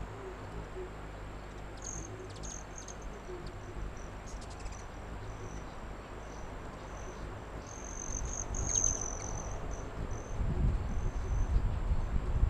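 High-pitched insect chirping in a long, uneven series of short notes, with a few quick clicking runs. The chirps grow louder and run together about eight seconds in, and a low whirring rumble swells near the end.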